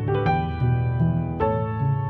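Background music of slow piano notes, each struck and left to ring.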